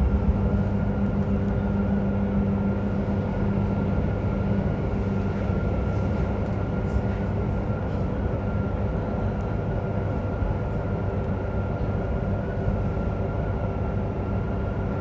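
Running noise inside a JR Hokkaido 731-series electric train car, Moha 731-109: a steady rumble with several steady tones from the traction motors. The car's motor on the Otaru-end bogie gives an abnormal loud growl, like an old nose-suspended (tsurikake) motor.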